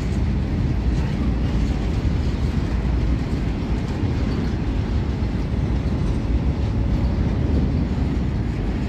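Goods train of Indian Railways rolling past, a loud steady rumble of wagons on the rails.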